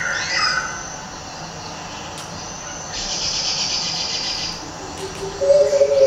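Recorded forest ambience played as a stage sound effect: birds chirping over a pulsing insect chorus, with a steady held tone coming in near the end.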